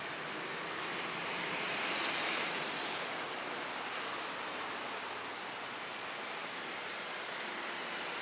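Steady rush of street traffic that swells a little about two seconds in as a vehicle passes, with a brief high hiss about three seconds in.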